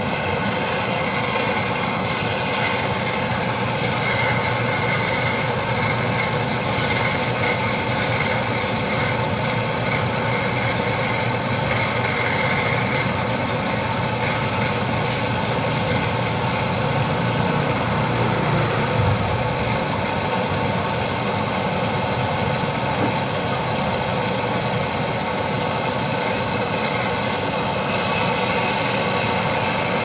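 Handheld gas torch on a yellow fuel cylinder, burning with a steady, even hiss as its flame heats a copper refrigerant tube at a brass access valve for brazing.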